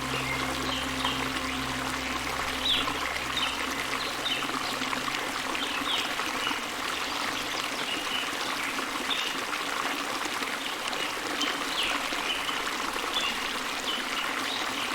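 Steady running water of a stream, trickling and bubbling. The low held tones of soft ambient music fade out in the first few seconds.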